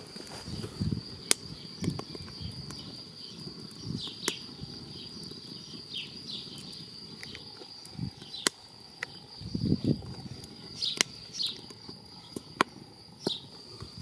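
Wood fire crackling in a small cast-iron stove, with sharp pops and snaps scattered irregularly through. A steady high-pitched tone runs underneath, and low rumbling puffs come several times, most strongly about ten seconds in.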